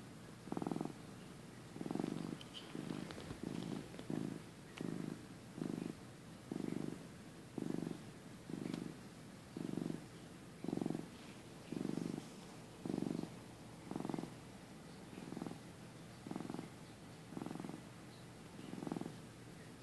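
Flame point Siamese cat purring while it dozes, the purr swelling and fading about once a second with each breath.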